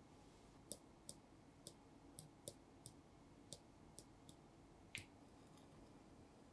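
Camera shutter clicking about ten times at uneven intervals, sharp and light, over a near-silent background.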